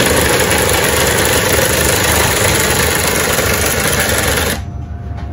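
Makita cordless driver running steadily, turning the drive rod that moves a copper-pipe trombone capacitor's slide along its rail track; it stops suddenly about four and a half seconds in.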